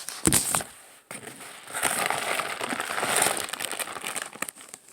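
Packaging crinkling and rustling as it is handled and pulled at, with a couple of sharp knocks near the start and a longer stretch of rustling from about two to four seconds in.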